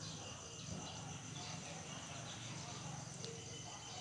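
Steady high-pitched insect trilling over a low, even hum.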